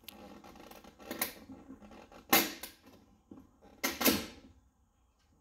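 Carbon fiber trim piece being pried off a car's front wheel arch: a few sharp clicks and rattles as its push-in clips let go, the loudest about two seconds in and another pair near four seconds.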